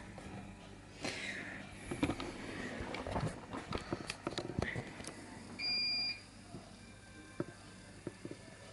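Scattered light clicks and handling rustles, then a single short electronic beep lasting about half a second, a little past the middle.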